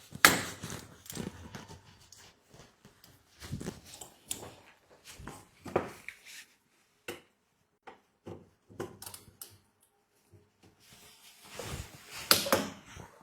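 Irregular clicks, knocks and clatter of small metal parts and tools being handled on a workbench while a diesel fuel injector is worked on, with a burst of louder knocks near the end.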